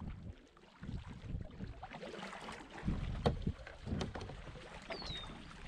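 Kayak paddle working the water, with splashes and a few sharp knocks around the middle, over wind rumbling on the microphone. A short falling chirp near the end.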